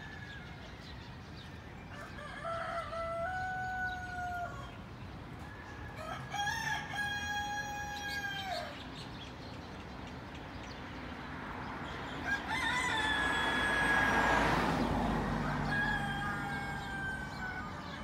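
Rooster crowing: about four long crows a few seconds apart, each stepping up to a held tone. About two-thirds through, a swell of rushing noise rises and falls, like a car passing.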